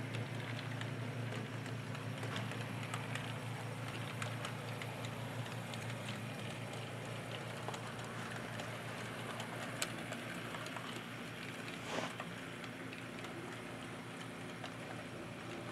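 HO-scale model train rolling slowly along the track: a steady crackle of small clicks from the wheels on the rails over a constant low hum, with a sharper click about ten seconds in.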